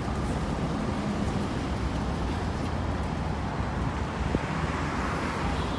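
City street traffic noise: a steady rumble of passing road vehicles, with one vehicle swelling louder as it passes about five seconds in.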